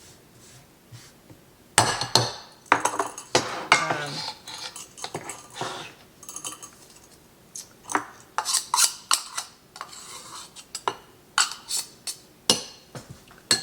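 Kitchen utensils and dishes clinking and scraping against each other in an irregular run of sharp knocks, starting about two seconds in.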